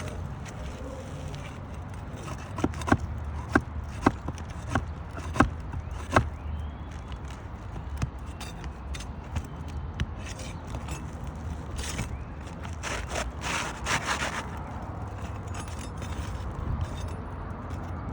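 Hand tools working asphalt roof shingles during a repair: a run of about six sharp knocks roughly half a second apart, like nails being driven, then a stretch of scraping and rustling over the shingles.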